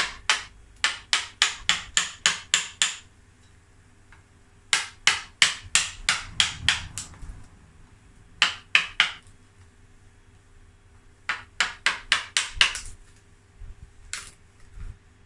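A mallet tapping a carving gouge into the dry wood of a bonsai trunk, in runs of quick, sharp strikes at about four a second with short pauses between them, and a single strike near the end.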